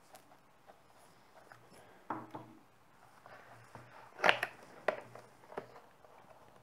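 Cardboard product box being handled and opened by hand: scattered light taps and scrapes of the paperboard, a brief rustle about two seconds in, and the sharpest snaps about four and five seconds in as the end flap is worked open.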